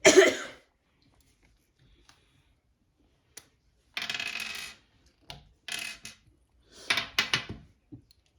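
Small hard parts of a toy rover kit clattering and rattling in short bursts: a loud one at the start, then three more between about four and eight seconds in.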